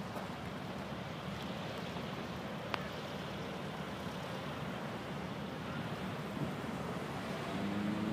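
Hovercraft running: a steady low drone with a few higher tones coming in near the end and rising slightly.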